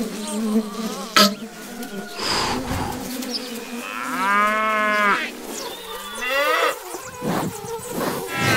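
A cow mooing: one long call about four seconds in, then a shorter call that rises in pitch. A sharp click comes about a second in.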